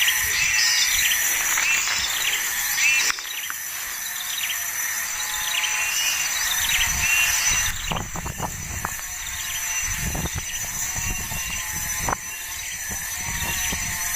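Small birds chirping in repeated short high calls over a steady high insect drone, with scattered clicks and rustles in the second half.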